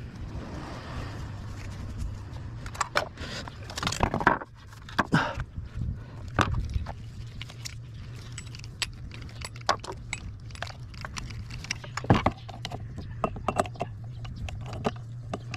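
Irregular metallic clinks and clicks as a hole saw and its arbor are handled, over a steady low hum.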